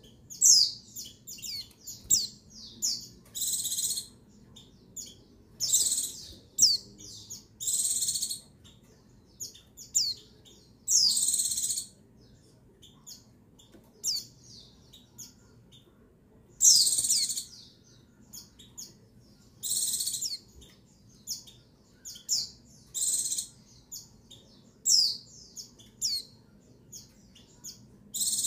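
White-eye (pleci) calls: bursts of high-pitched chirps and quick sweeping whistles, some strings lasting about a second, separated by pauses of one to a few seconds. It is offered as a female's call used to rouse male white-eyes into song.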